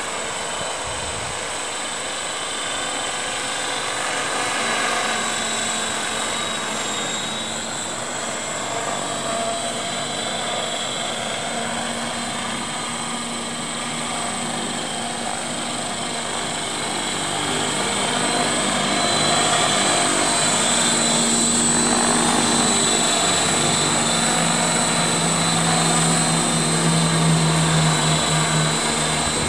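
CopterX 500 SE electric radio-controlled helicopter in flight: a steady high motor whine over the rotor blades' noise. The low blade tone grows louder about two-thirds of the way through.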